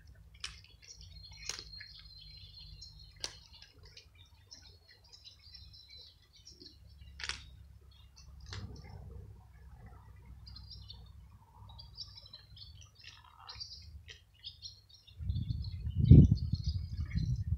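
Small birds chirping and twittering in short high calls throughout, with a few sharp clicks. About two seconds before the end, loud low rumbles hit the microphone.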